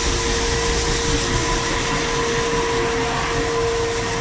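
Grain-handling machinery running steadily: a constant whine over an even rushing noise.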